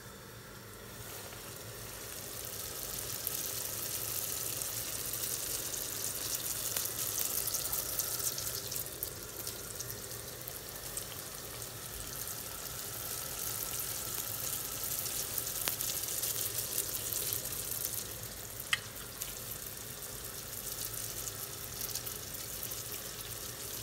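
Yeast donut rings deep-frying in well-heated oil in a frying pan, a steady sizzle that builds up over the first few seconds and then holds. A single short click about nineteen seconds in.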